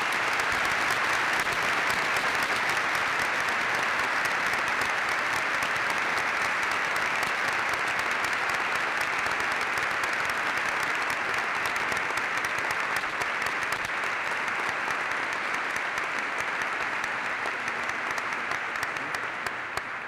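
A large audience applauding, many hands clapping in a dense, steady ovation that tapers off near the end.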